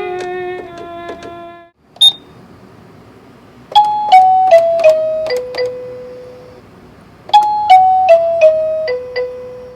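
Children's toy electronic keyboard playing pitched notes. A falling run of notes ends about two seconds in, then after a short click a phrase of five notes stepping down in pitch plays twice, with a pause between.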